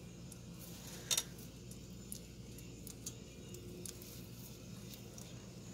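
Front wheel hub of a 2001 Chevy Blazer 4x4 being turned by hand, giving faint metallic clicks with one sharper click about a second in. It is being checked for brake rubbing, and no rub is heard; the owner judges it fine.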